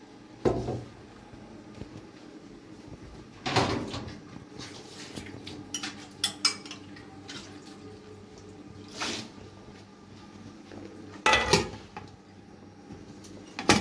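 Metal pots and a metal pan lid being handled and set down on a kitchen counter: a handful of separate clattering knocks a few seconds apart, the loudest near the end.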